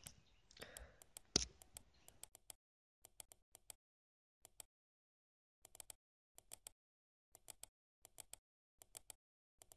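Computer mouse button clicking, mostly in quick pairs like double-clicks, about a dozen times with near silence between them; the loudest click comes a little over a second in.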